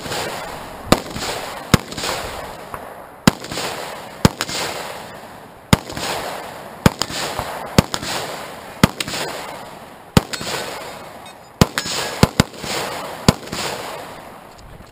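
AR-style semi-automatic rifle fired in single aimed shots, mostly about one a second with a few quicker follow-ups, about fifteen in all. Each shot is a sharp crack followed by a long echo that dies away before the next.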